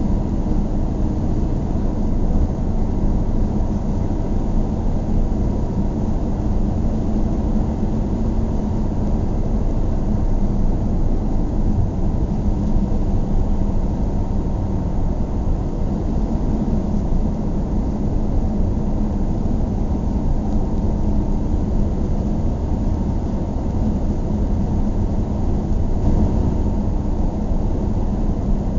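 Car driving on a snowy road: a steady, even low rumble of tyres and engine with no change in speed.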